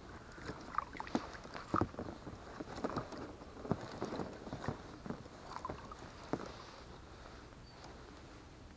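A freshly caught pike being handled beside an inflatable boat: irregular splashes, knocks and clicks of fish, water and tackle that die away about six and a half seconds in.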